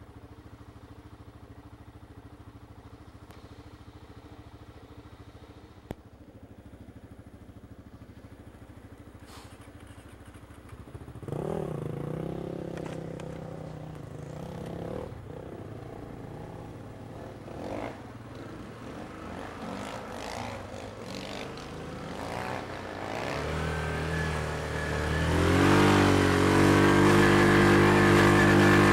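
Yamaha Grizzly ATV's single-cylinder engine idling quietly, then revving unevenly about eleven seconds in as the quad moves off. Near the end it climbs to a loud, steady high-rev pull under load up a soft sand slope.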